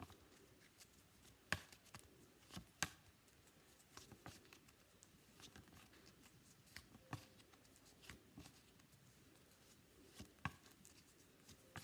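Near silence: quiet room tone broken by a few faint, short clicks and taps, the clearest about a second and a half in, twice near three seconds, once around seven seconds and once around ten and a half seconds.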